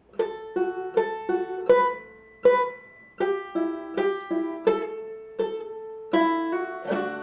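Five-string banjo played clawhammer style, plucking a simple tune in a steady rhythm, each note ringing on.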